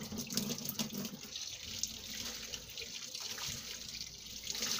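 Water running steadily from a tap into a sink, splashing over a soapy sponge held and squeezed in the stream.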